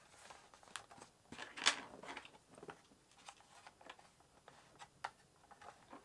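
Scattered faint clicks and short scrapes of the Alienware X17 R2 laptop's base plate being pried up by hand and with a pry tool, its edge clips working loose; the strongest click comes about a second and a half in.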